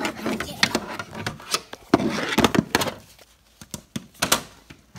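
A run of quick knocks and clicks of hard plastic toys and toy dollhouse pieces being handled and set down, with some quiet talk mixed in.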